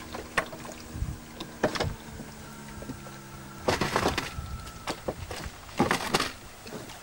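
Knocks and clatter of gear being handled in a flat-bottomed boat, with a dense run of knocks about four seconds in and another near six seconds, over a faint steady hum.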